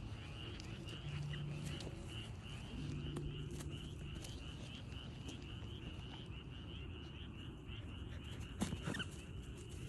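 A steady, rhythmic high-pitched chirping chorus, about five pulses a second, typical of calling insects or frogs. A brief sharper sound breaks in near the end.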